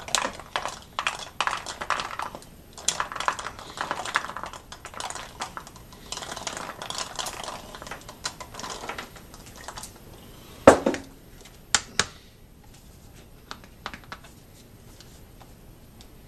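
Rabbit manure pellets poured from a glass jar through a makeshift plastic-bottle funnel into a plastic bottle, a dense patter of many small clicks for the first nine seconds or so. Past the middle comes one louder knock with a short ring and two sharp clicks, then only a few light clicks.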